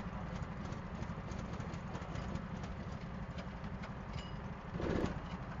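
Go-kart engine idling with an uneven, fast low chugging. A short louder burst comes near the end.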